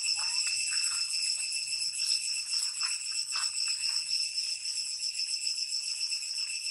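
Steady, shrill, unbroken drone of cicadas, with a few faint short squeaks over it.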